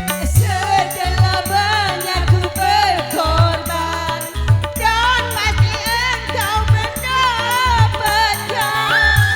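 Dangdut koplo music from a street orkes. A wavering, ornamented lead melody with vibrato plays over a steady beat of hand drums and bass, about two beats a second.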